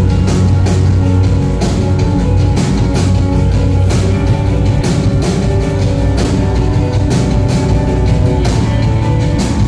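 Live instrumental post-rock band playing at full volume: electric guitars and keyboard holding sustained chords over a steady drum-kit beat, heard through a large concert hall's PA system.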